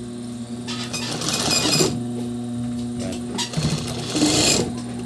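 Industrial high-speed lockstitch sewing machine stitching in two short runs, about a second each, with a steady hum underneath. It is sewing through a thick layer of spandex as a test of freshly reset hook timing, and it is not skipping stitches.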